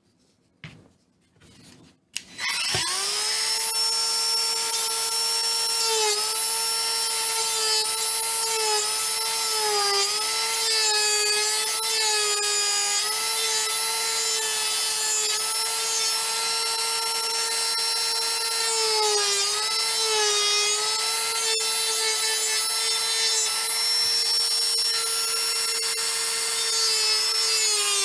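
Cordless rotary tool starting up about two seconds in and running with a steady high whine while grinding and smoothing a piece. Its pitch dips briefly each time the bit is pressed into the work.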